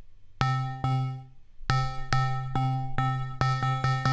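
Maschine MK3 step sequencer looping one repeated pitched note. The pattern fills in as steps are added: two notes, a short gap, then steady notes about every half second that grow closer together near the end.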